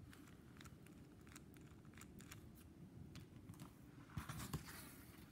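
Faint, irregular small plastic clicks from a Kenner Super Powers Martian Manhunter action figure being handled, its legs squeezed to work the Martian Punch arm. About four seconds in there is a short, louder scuffle of handling.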